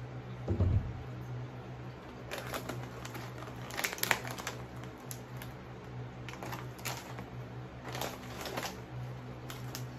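Plastic snack wrappers crinkling and rustling as packets are handled and pulled from a cardboard box, in several short bursts, with a dull low thump about half a second in. A steady low hum runs underneath.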